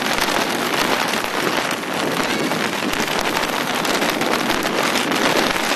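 Mountain bike wheels splashing through a shallow stony ford, a steady hiss of churned water.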